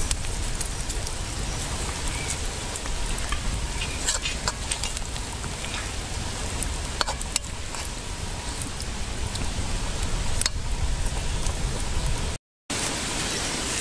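Wind on the microphone outdoors: a steady hiss with low rumbling buffeting, under scattered light clicks and taps. The sound cuts out completely for a moment near the end.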